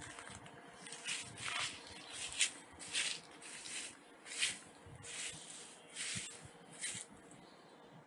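Footsteps through dry grass and weeds, a series of short swishing rustles about one every half second to second, which die away near the end.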